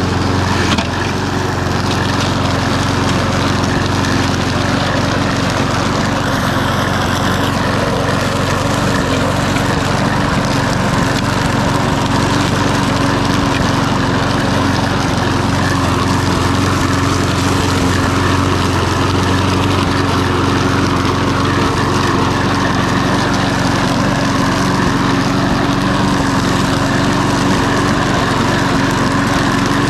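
Walk-behind petrol lawnmower's small engine running steadily at a constant speed, revived with a new spark plug.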